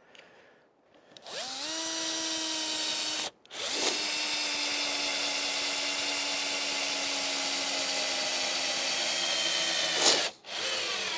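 Power drill running on the wooden roof slabs. A short run of about two seconds is followed, after a brief pause, by a steady run of about six seconds whose pitch sags slightly near the end, then a short final burst.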